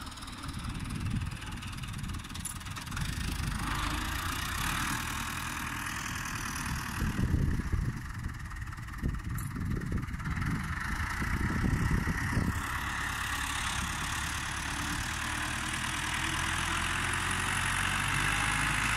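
Diesel engine of a New Holland (Fiat 640) tractor running steadily under load as its front blade pushes sand, growing louder near the end.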